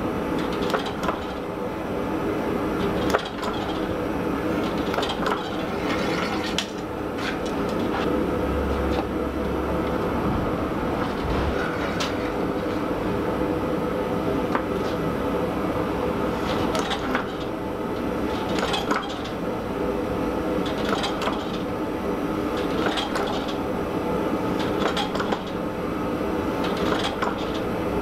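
Massey power hammer running and striking continuously, its dies hammering a red-hot pattern-welded steel sword blade to draw it out, over the steady hum of the hammer's motor.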